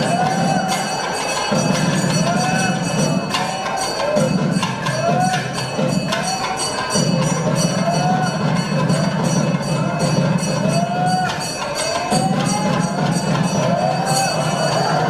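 Hindu temple aarti sounds: bells ringing in rapid, continuous strokes with clanging percussion, over a low drone that starts and stops every second or two.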